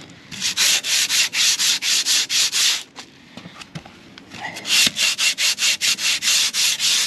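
Sandpaper on a Stanley hand sanding block rubbed back and forth over hardened masonry filler on a concrete fence post, in quick even strokes of about four a second. The strokes stop for about a second and a half midway, then start again.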